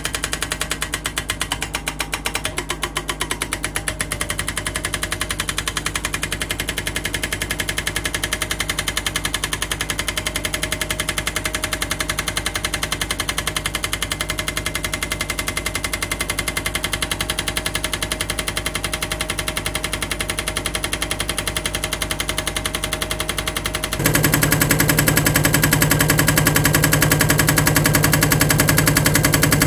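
Hydraulic breaker hammer on a 2-ton mini excavator pounding rock in rapid, even blows over the steady running of the excavator's engine. It steps up suddenly louder near the end.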